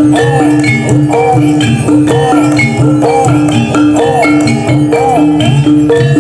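Gamelan music for a barongan dance: metallophones strike short notes in a steady repeating pattern over a low drone, while a higher melody line bends up and down in pitch about every two-thirds of a second.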